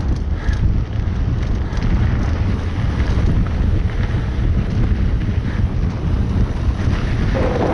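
Wind buffeting the microphone of a mountain biker's action camera during a fast downhill run on a dirt singletrack: a loud, steady rush that is heaviest in the low end, mixed with rumble and rattle from the bike on the trail.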